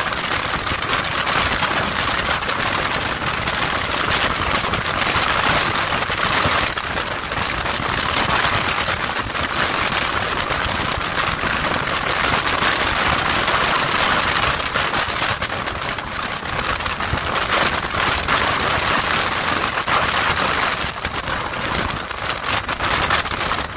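Steady, loud rush of wind noise over the microphone of a motorcycle cruising at highway speed, with the bike's road noise running beneath it.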